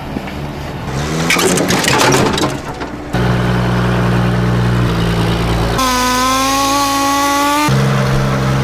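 Woodworking power tools cutting timber. A motor spins up with a rising hum, then gives a rough rasping of cutting for about two seconds. Steady machine hums follow, changing pitch abruptly twice.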